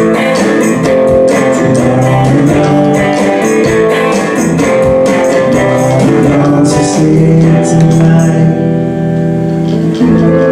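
Electric guitar strumming chords in a steady rhythm, played live through an amplifier. Near the end a chord is left to ring before a new one is struck.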